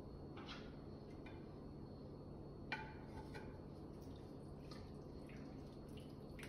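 Faint wet plops and soft clicks as soaked rice noodles are scraped from a glass dish into a pot of soup with a wooden spoon, with one sharper knock a little under three seconds in.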